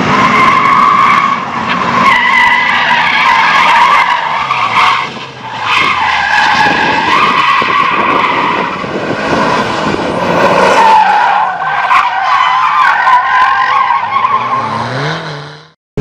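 Tyres of a Mitsubishi Lancer Evolution squealing through slalom turns, a wavering high squeal that goes on almost without a break. Under it the car's turbocharged four-cylinder engine revs up and down. The sound fades out just before the end.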